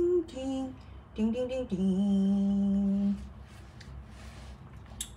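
A woman humming a short wordless tune in long held notes, standing in for background music; she stops about three seconds in. A single light click comes near the end.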